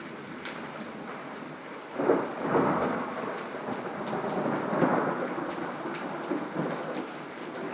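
Steady rain during a severe thunderstorm, with scattered sharp ticks; about two seconds in a loud clap of thunder breaks in and rumbles on for several seconds before fading.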